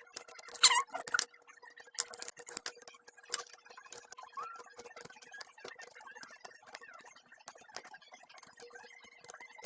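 Scissors snipping and craft materials being handled: scattered sharp clicks and snips, with a brief high squeak just under a second in.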